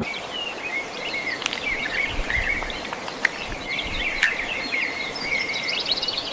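Many birds chirping and calling at once in a dense, continuous chorus, with a few sharp clicks and a low rumble underneath.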